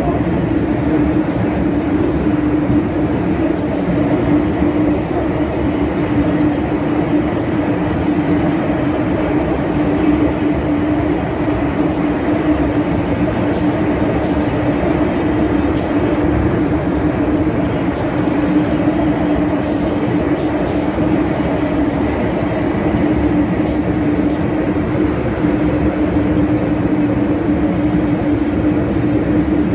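An MTR M-Train electric multiple unit running at speed through a tunnel, heard from inside the car. It is a steady rumble with a strong, even hum and a few faint scattered ticks.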